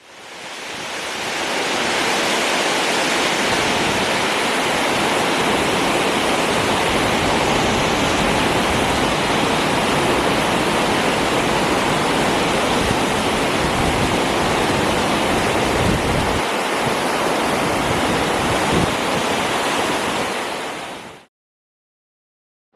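Brúarfoss waterfall: a steady rush of falling water. It fades in over the first couple of seconds and fades out quickly a little before the end.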